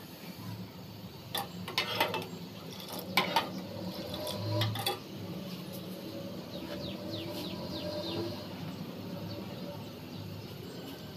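Steel ladle clinking against the inside of a metal pot of milk, a few light knocks in the first few seconds.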